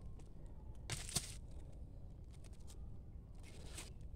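A digging tool working in loose soil at the roots of a bidara shrub: a short scrape about a second in and fainter scrapes near the end, over a faint low rumble.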